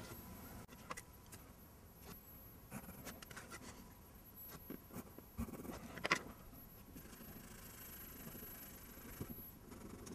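Faint light clicks and knocks from a small black block model being handled over the paper, the loudest about six seconds in. Near the end, faint rubbing on the paper.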